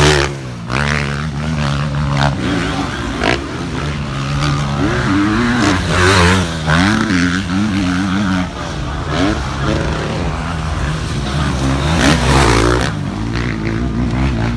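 Motocross dirt bike engines racing, revving up and dropping back again and again as the riders work the throttle, with louder surges as bikes pass.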